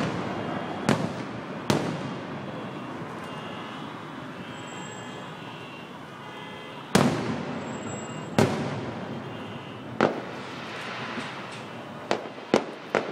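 Fireworks display: aerial shells bursting as sharp booms, each trailing off in an echoing rumble. Two bursts come about a second in, then a quieter spell of about five seconds, then booms every second or so, with three in quick succession near the end.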